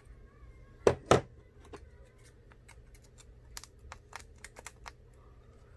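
Small hand-tool clicks and taps on the opened phone while screws are being taken out: two sharper knocks about a second in, then a scatter of light, quick clicks.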